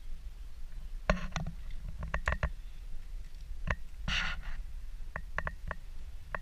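Scattered sharp clicks and knocks with a short rustle about four seconds in: a Fiat Bravo's rear door being opened and the camera being handled around the rear seats, over a steady low rumble.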